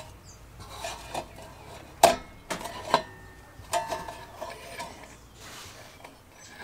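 Metal clicks, clinks and scrapes from a rusty Dietz kerosene lantern being handled as its wick burner is worked loose and lifted from the fount, with a few sharp clicks about two to four seconds in.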